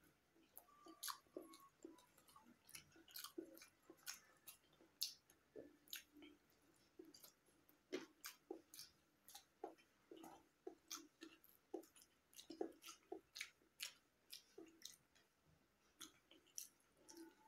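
A person chewing boiled egg and rice close to the microphone: quiet, irregular wet mouth clicks and lip smacks, a few a second.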